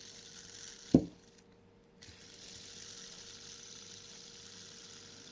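Fidget spinner whirring on its bearing, with a sharp knock about a second in. The whir stops for a moment, then starts again about two seconds in and runs steadily.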